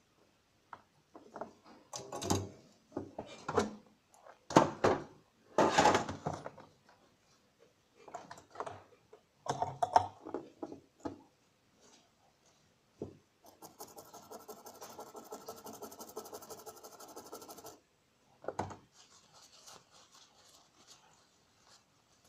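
Knocks, clicks and rubbing as a circuit board and hand tools are handled on a workbench. In the second half comes a steady buzzing rasp lasting about four seconds, then a single knock.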